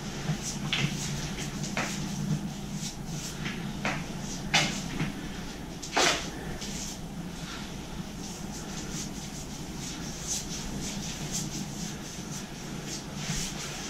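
Paintbrush strokes brushing stain-blocking primer onto drywall, with scattered clicks and knocks from the brush and paint can, over a steady low hum.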